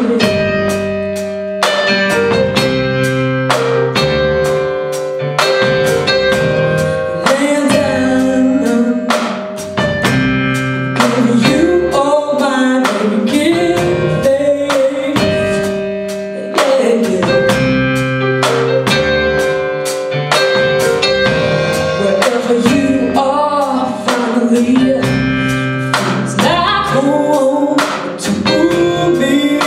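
Live band playing a song: a woman singing over keyboard, electric guitar, bass and drums keeping a steady beat.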